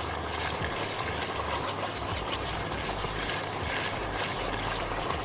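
Flour and hot ghee sizzling in a metal pot while a silicone whisk stirs them, with light scraping ticks from the strokes: a roux cooking to drive off the raw taste of the flour before the milk goes in.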